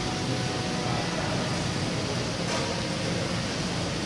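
Steady mechanical hum and hiss of running machinery, with no breaks.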